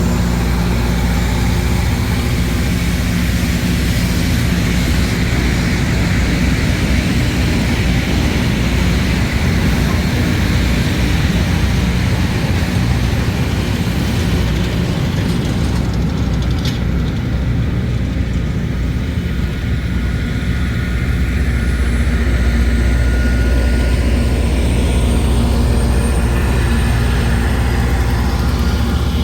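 Train rolling past with a steady low diesel rumble and a rushing hiss. The hiss fades out about halfway through while the low hum carries on.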